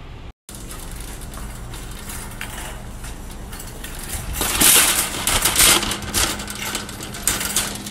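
Wire shopping cart rattling and clattering as it is pushed along, loudest and most crackly from about halfway through, over a faint steady hum.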